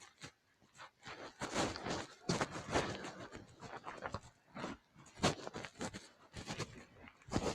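Footsteps of a person walking: an uneven run of short thumps and scuffs, about two a second.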